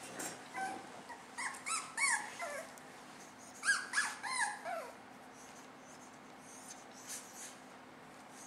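Dog whimpering: two bursts of several short, high-pitched whines, the first beginning about a second in and the second about four seconds in.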